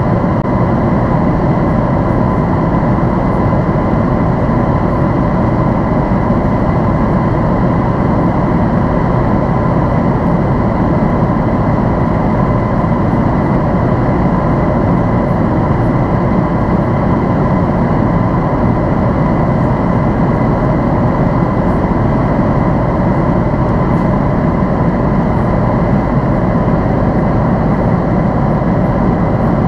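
Steady cabin noise inside a Boeing 767-400ER airliner: a constant rumble of engine and airflow noise with a steady high whine running through it.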